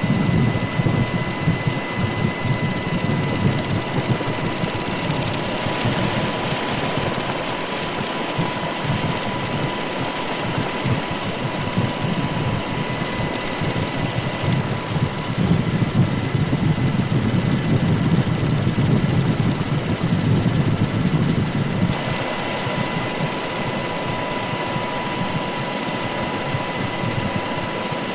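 Steady drone of an aircraft's engine heard from on board, a dense low rumble with a thin high whine over it.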